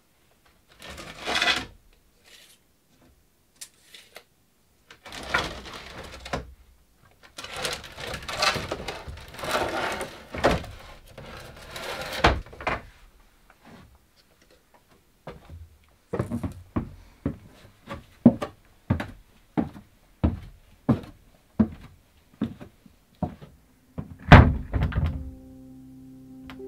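Wooden boards being sorted and pulled from a pile of timber: scattered knocks with scraping and rustling, then a run of evenly spaced wooden knocks with one heavy thunk near the end. Background music comes in just before the end.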